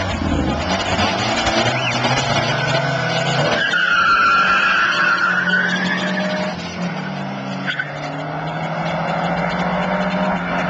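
Car engine running and revving, with a tyre squeal from about four to six and a half seconds in.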